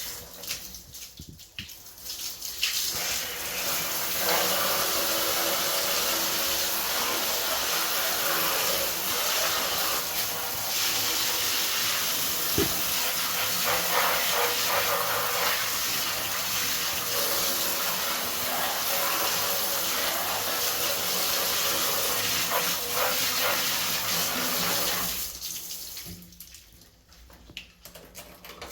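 Water running steadily, as from a tap or hose, starting about three seconds in and stopping near the end.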